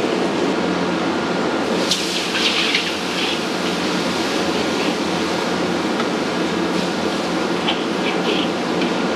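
Wok cooking over a high-flame gas burner: a steady burner roar with sauce sizzling. A metal ladle scrapes and clinks against the wok, most noticeably about two seconds in and again near the end.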